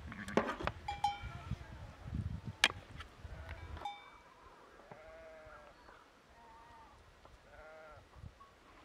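Farm animals bleating, three calls each about half a second long in the second half. Before them come a few sharp clinks and knocks in the first four seconds, the loudest about two and a half seconds in.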